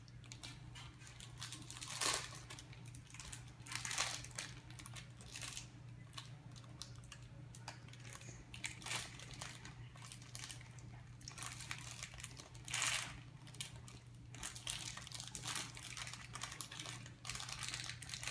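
A small wrapper crinkling as it is handled, in irregular crackles, with louder ones about 2, 4 and 13 seconds in.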